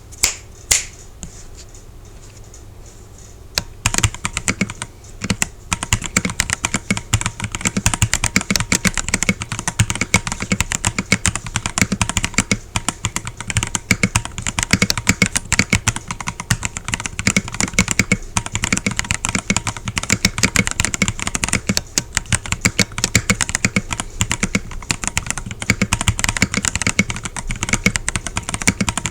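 Typing on a Redragon K649 Elf Pro mechanical keyboard with Ice Silver switches. A couple of single key clicks come first, then a few quiet seconds. From about four seconds in there is fast, continuous keystroke clatter.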